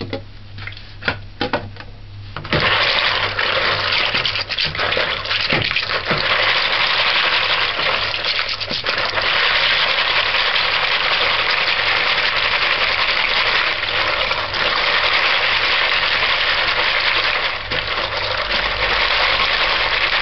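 Hands swishing and rubbing dried broad beans and kidney beans in a bowl of water to wash off the dirt. A few sharp clicks of hard beans against the bowl at first, then from about two and a half seconds in a steady, loud splashing and rattling of beans and water.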